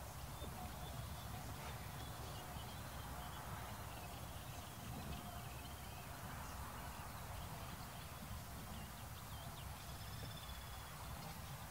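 Faint outdoor ambience: a steady low rumble with faint, high bird chirps and calls scattered through it.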